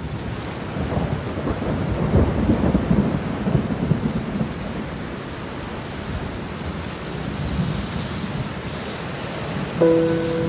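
Steady rain with a long roll of thunder, the rumble heaviest a couple of seconds in. Near the end a held musical chord comes in over the rain.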